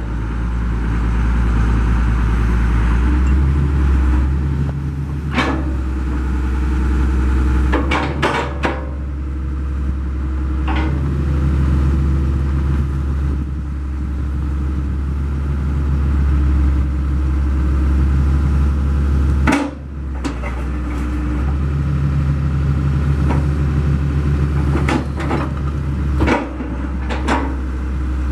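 Daewoo DH130 excavator's diesel engine running at a steady idle, with occasional sharp knocks: a cluster about eight seconds in, one at about twenty seconds, and several more near the end.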